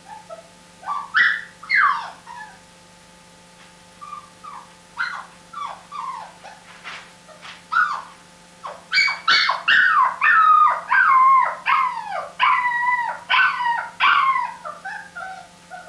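Dog whining and whimpering: a few short falling whimpers, then from about nine seconds in a run of longer, wavering high-pitched whines.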